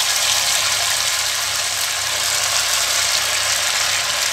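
Masala-marinated fish pieces deep-frying in hot oil in a kadai: a loud, steady sizzle of bubbling oil, with a faint low hum underneath.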